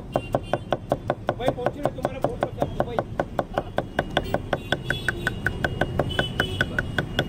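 Kitchen knife chopping onion and coriander on a wooden board: rapid, even knocks of the blade against the wood, about six a second.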